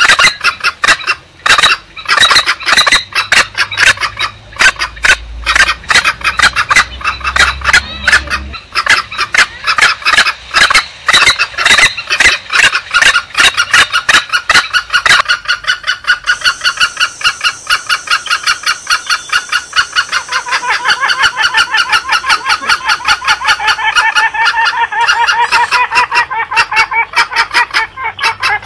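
Green junglefowl calls used as a hunting lure: a fast, unbroken run of clucking calls. Over the second half more birds join in, some higher and some lower, overlapping in a dense chatter.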